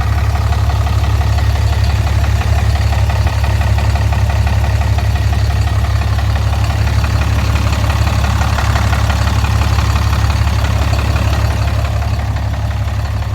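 Emissions-deleted 2010 Cummins 6.7 L inline-six turbo diesel idling steadily, with a fast, even knocking tick over the engine's low running note. The owner believes the knock comes from the bottom end.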